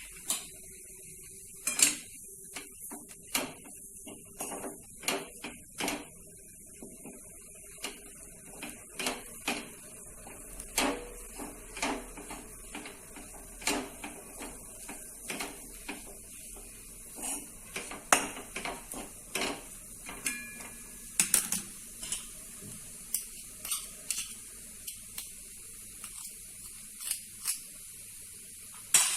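Spatula knocking and scraping against a kadhai as methi zunka is stirred: irregular clicks and taps with a few louder knocks, over a steady faint hiss.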